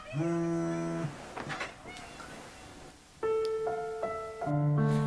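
A brief held, pitched sound in the first second, then keyboard music with sustained electric piano notes starting about three seconds in.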